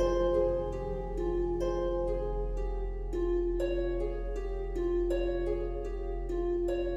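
Background music: a slow melody of plucked string notes, each one ringing and fading, over a held low bass.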